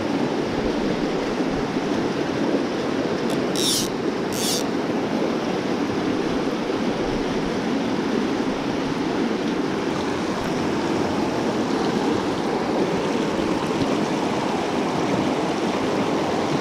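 Shallow mountain river rushing steadily over rocks through riffles. About four seconds in, two brief high hisses come a moment apart.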